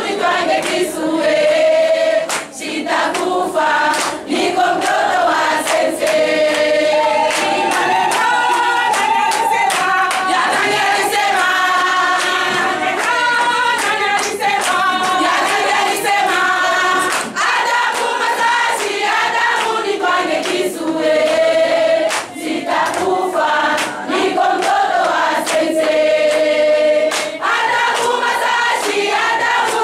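A group of women singing together in chorus, with hands clapping along throughout.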